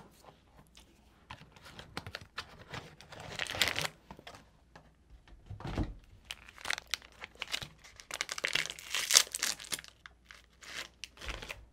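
Crinkling and tearing of a plastic Oreo wrapper being opened by hand, in irregular crackly bursts that are loudest about three and a half seconds in and again around nine seconds in. A soft low thump comes about six seconds in.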